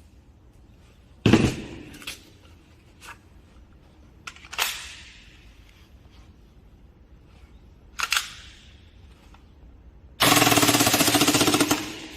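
Airsoft gun firing three single shots a few seconds apart, each with a short echo, with faint clicks in between. Near the end comes a rapid full-auto burst of about two seconds.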